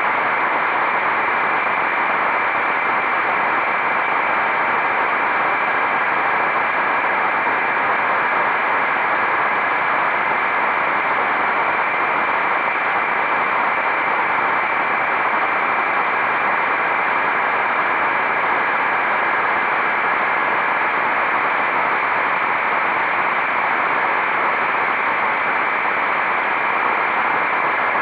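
Steady rushing noise of wind and road on a riding motorcycle's microphone, unchanging throughout, with no distinct engine note standing out.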